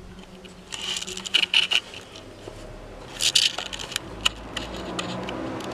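Steel roller chain clinking and rattling on a 3D-printed go-kart sprocket, in two clusters of sharp metallic clicks, one about a second in and another about three seconds in, with scattered single clicks between.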